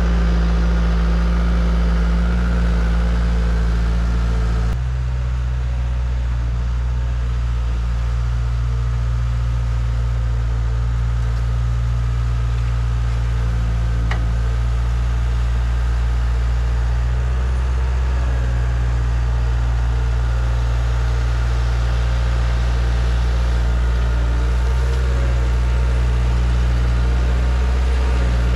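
Skid steer engine running steadily, its note shifting slightly about five seconds in.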